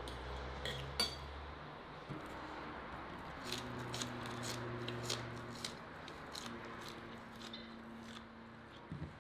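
Forks clinking and scraping against plates during a meal: a string of light, sharp clicks, thickest a few seconds in, over a faint steady hum.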